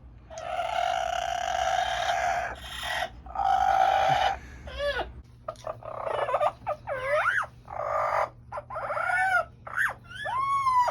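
Amazon parrot calling: a few long, harsh, even-pitched calls in the first four seconds, then a string of whistles that swoop up and down in pitch.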